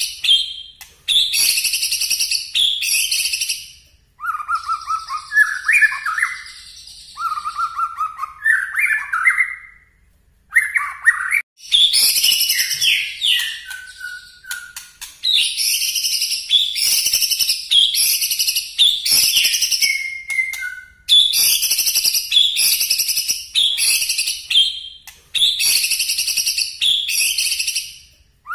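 White-rumped shama singing loud, rapid phrases of high notes one after another with short gaps: the bursting 'nembak' song that shama keepers prize. From about four to ten seconds in, the phrases drop lower into runs of rising notes before the high bursts return.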